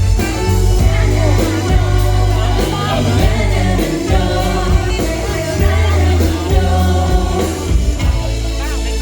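Pop song with a singer's voice over a heavy bass line and a steady drum beat.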